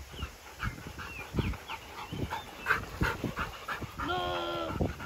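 Wet Labrador retriever panting hard after swimming out to fetch a ball, tired from repeated retrieves, with one short, steady whine about four seconds in.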